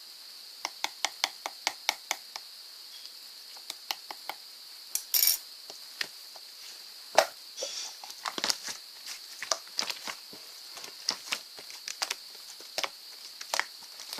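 Slime being squeezed and pressed by hand, giving a string of short, sharp clicking pops as trapped air bursts: a quick run about a second in, then scattered pops. A steady faint high hiss runs underneath.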